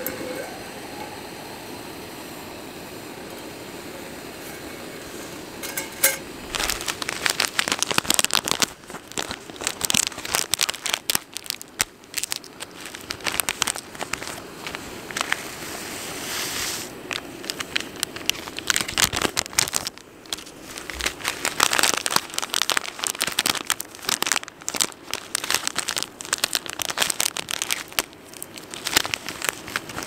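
A steady hiss for about six seconds, then crinkling and rustling with many scattered clicks and light knocks, as of camp kit and packaging being handled.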